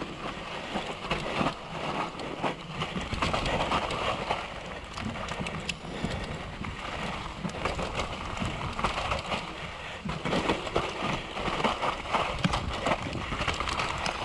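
Downhill mountain bike riding fast down a rough dirt forest trail: tyres running over dirt, roots and stones, and the bike rattling and knocking over the bumps.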